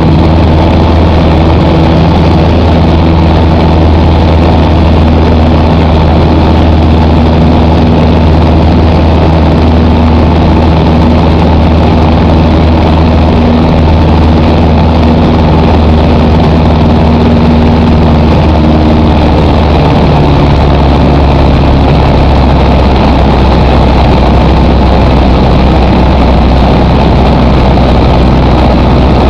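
Cessna 172's piston engine and propeller running with a loud, steady drone; the pitch shifts slightly about twenty seconds in.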